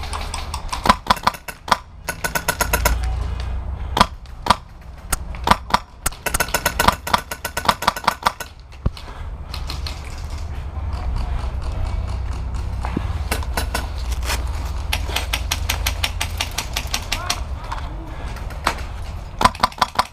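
HPA-powered VFC Avalon airsoft rifle firing quick single semi-automatic shots, in scattered runs, thickest in the first eight seconds and again near the end, over a low steady rumble.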